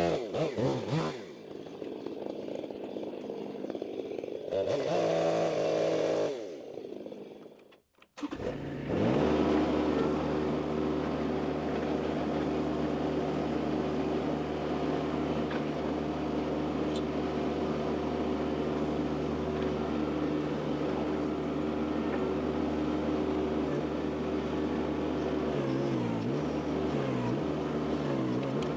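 A chainsaw's engine drops from full revs as a cut finishes, revs up briefly once more and goes quiet about eight seconds in. Then an engine runs steadily at an even pitch, wavering up and down a little near the end.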